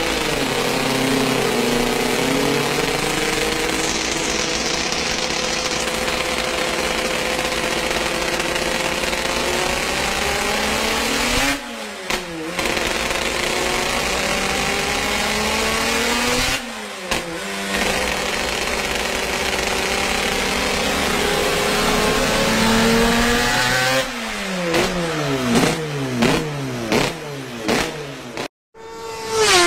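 Suzuki RG500 two-stroke square-four engine running hard on a rolling-road dyno, held at high revs in long pulls that climb slowly, twice broken by a brief dip in revs. Near the end it changes to a quick string of throttle blips, revs flaring and falling away each time, and then stops abruptly.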